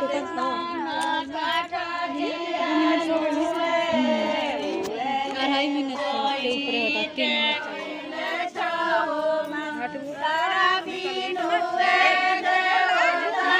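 A group of women singing a Govardhan puja (Godhan) devotional folk song together, several voices at once in long held lines.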